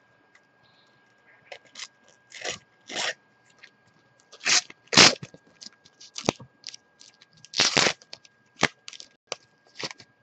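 A Panini FIFA 365 sticker packet being torn open and its wrapper crumpled: a run of irregular crinkling, crackling rustles, loudest about four and a half and again about seven and a half seconds in.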